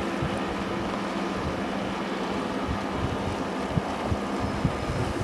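Wind rumbling on the microphone over a steady low motor hum, with scattered low thumps.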